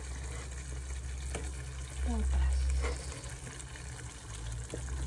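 Tomato-sauce stew simmering and sizzling in a pot on a gas burner, with a few soft plops as potato chunks are dropped in by hand, over a steady low rumble.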